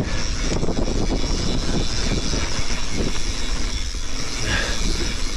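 Mountain bike riding fast down a dry dirt trail: tyres rolling over the dirt and the bike rattling over bumps, with steady wind rumble on the camera microphone.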